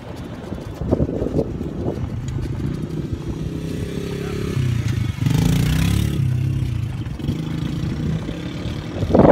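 Golf cart driving along a sandy road, its motor running steadily, with a rise in pitch and then a louder rush of noise lasting under a second about five seconds in.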